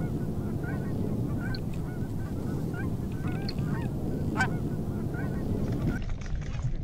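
A flock of Canada geese calling in flight, many short honks and clucks overlapping, with a few louder honks among them. A steady low rumble runs underneath.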